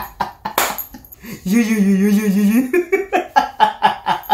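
A man laughing hard in quick repeated bursts, with a drawn-out wavering vocal note in the middle.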